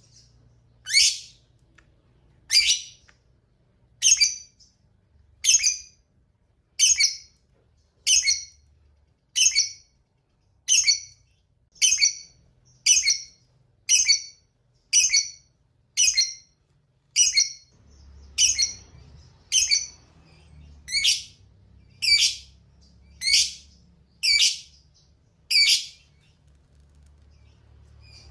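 Lovebird giving a long series of short, shrill, high-pitched calls, about twenty in a row at roughly one a second. The calls stop shortly before the end.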